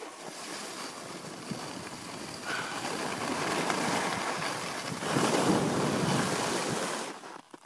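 Skis hissing over packed snow on a downhill run, with wind rushing over the microphone. The noise grows louder about halfway through and drops away just before the end.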